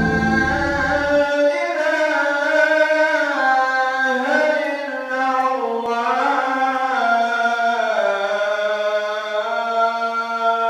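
An unaccompanied solo voice singing a slow, ornamented chant, sliding between pitches and holding long notes. The deep tones of an intro music track cut off about a second in.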